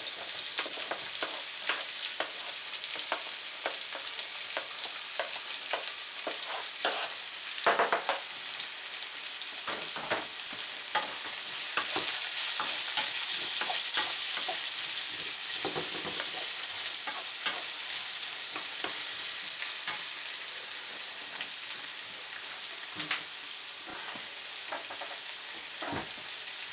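Sliced vegetables sizzling in hot oil in a frying pan, stir-fried with a wooden spatula that knocks and scrapes against the pan again and again. Onion pieces are tipped into the pan from a cutting board at the start.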